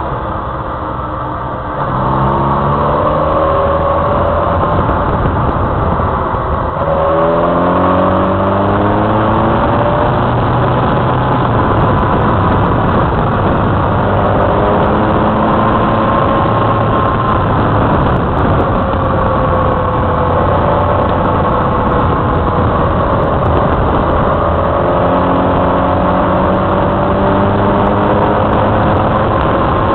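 Motorcycle engine under way on the move: it picks up about two seconds in and climbs in pitch, drops as it shifts up a gear about seven seconds in and climbs again, then runs at a steadier pitch with slow rises and falls, over a steady rush of wind noise.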